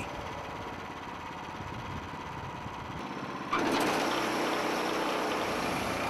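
Small gasoline engine of a portable band sawmill running steadily. About three and a half seconds in, the sound jumps suddenly to a louder, harsher running noise and holds there.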